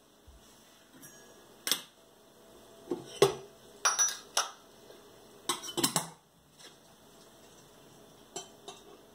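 Several sharp clinks and knocks of hard objects in short clusters, the loudest about three seconds in, over a faint steady hum.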